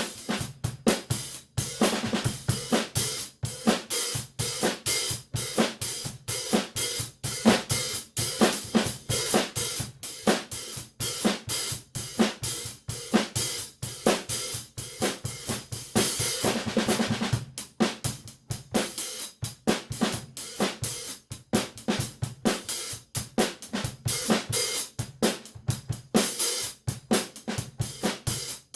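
Drum kit groove played on 14-inch Zildjian K Sweet hi-hats, with snare and bass drum. There are quick, steady hi-hat strokes throughout and a longer ringing wash a little past halfway.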